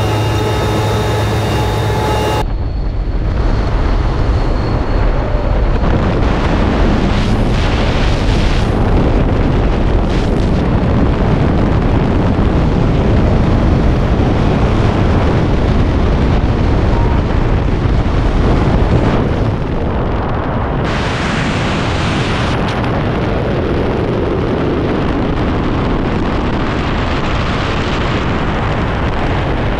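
Aircraft engine drone in the jump plane's cockpit for the first couple of seconds, then heavy, steady wind rush on a skydiver's camera microphone through exit and freefall.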